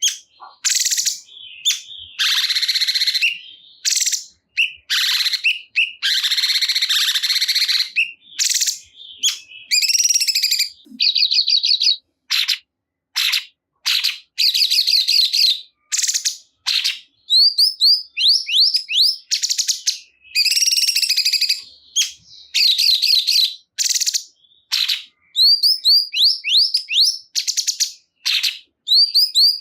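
A cungkok songbird singing in short, loud bursts. Rough chattering phrases give way, from about halfway in, to rapid series of quick down-slurred whistled notes.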